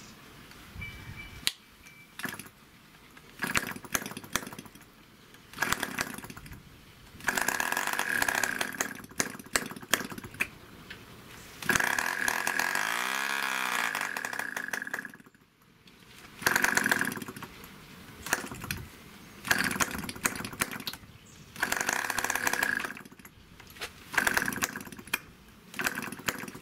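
Small model aircraft engine being hand-started by flicking its propeller: it fires and runs for a second or a few seconds at a time, then stops, over and over. The longest run, about twelve seconds in, lasts about three seconds, changes pitch and cuts off suddenly.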